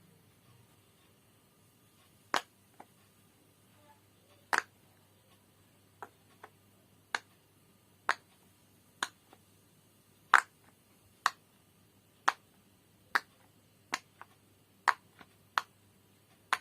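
Silicone bubbles of a Pop It fidget toy being pressed one at a time, each giving a sharp pop, about one a second with a few quick doubles.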